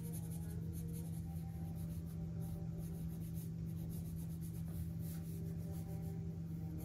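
Pencil scratching on drawing paper in quick, repeated shading strokes, over a steady low hum.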